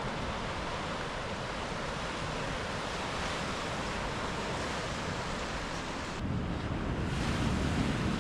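Ocean surf washing in steadily with wind. About six seconds in, the hiss thins and a low wind rumble on the microphone grows stronger.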